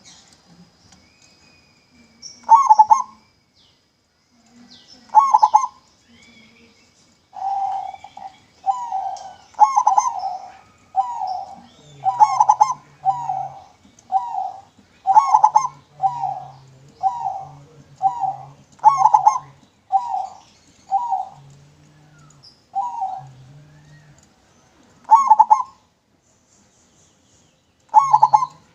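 Zebra dove (perkutut) cooing: a clear song of short, evenly spaced coo notes. Single phrases come first, then a long rhythmic run of about one note a second, and two more single phrases near the end.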